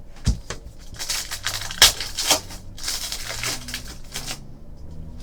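Trading cards and their packaging being handled: a soft knock, then two stretches of card stock and wrappers rustling and sliding, with a sharp click in between.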